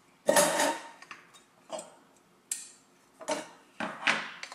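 Clicks and clinks of a Jetboil Sol camping stove being taken apart by hand: the burner, fuel canister and plastic pot support lifted out of the metal cook cup. About six separate knocks, the first and loudest a short metallic clink about a quarter second in.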